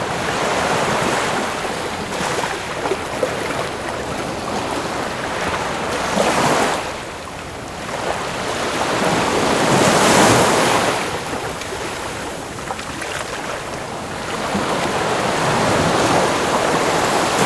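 Ocean waves breaking and washing on a shore, in continuous surf with swells that rise and fall every few seconds; the biggest crash about ten seconds in. Some wind is on the microphone.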